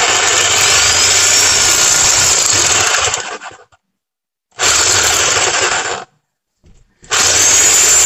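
Reciprocating saw running in three bursts as its blade cuts into a spray-cheese aerosol can: a long run of about three seconds, a short run of just over a second, and a third starting about seven seconds in. A high whine rises and falls in pitch during the first and last runs.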